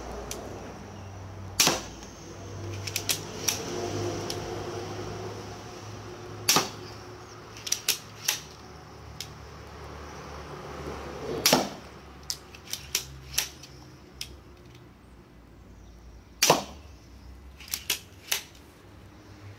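Mankung Alligator / AngloArms 360 multishot pistol crossbow shooting four times, about five seconds apart, each a sharp snap of the string. Between the shots come smaller clicks and rattles of the lever mechanism as it is re-cocked for the next bolt from the magazine.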